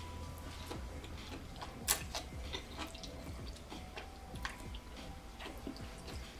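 Close-miked chewing of kimchi ramen noodles: soft, irregular wet clicks and smacks from the mouth, with one sharper click about two seconds in.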